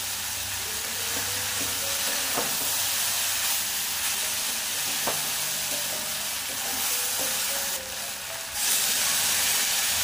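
Okra and spice paste sizzling in hot mustard oil in an aluminium kadai, stirred and scraped with a metal spatula, with a couple of sharp knocks of the spatula against the pan. Near the end the sizzle dips briefly, then comes back louder as water goes into the hot pan.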